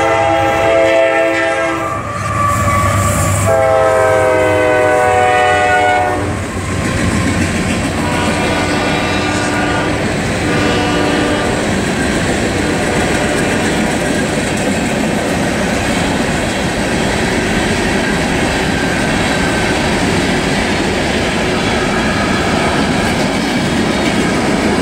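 Freight locomotive air horn sounding several blasts at a grade crossing, the longest about two and a half seconds, with fainter horn notes until about halfway. After that comes the steady rumble and clickety-clack of the train's hopper cars rolling past.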